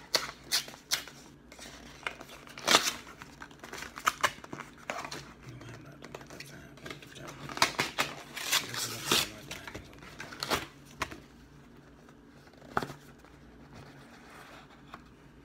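Cardboard box and paper wrapping handled and opened by hand: rustling and scraping of paper and card, with sharp snaps and clicks every second or two as the wrapping is pulled off and the inner box is slid out of its sleeve.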